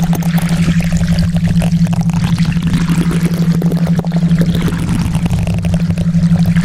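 A steady low hum from a theta-wave track, pulsing several times a second, under a rushing, water-like noise.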